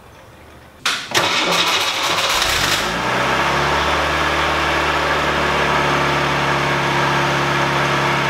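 Pontiac Fiero 2M4's 2.5-litre four-cylinder engine cranking on the starter for about two seconds, then catching and settling into a steady idle: the first start after its emptied fuel tank is refilled.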